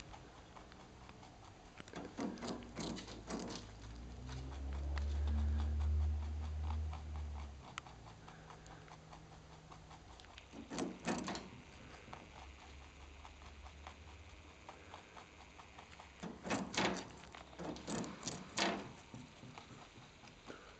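Lop-eared rabbit biting and crunching a raw carrot in short bursts of quick crisp bites: a few seconds in, again around ten seconds, and a longer run near the end. Between about four and seven seconds in, a low hum swells and fades.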